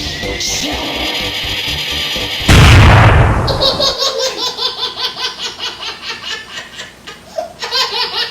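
A sudden loud boom about two and a half seconds in, fading over a second, followed by rhythmic laughter.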